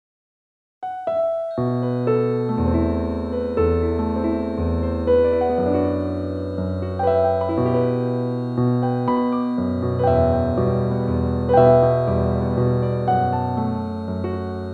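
Slow piano music, starting about a second in after silence, with single notes and chords struck every half second or so.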